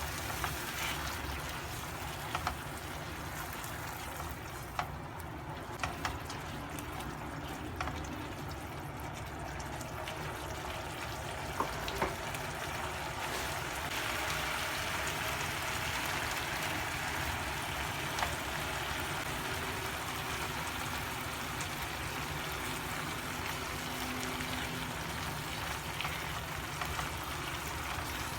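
Steady sizzling and bubbling of food cooking in a pan, with scattered light clicks, growing a little louder about halfway through.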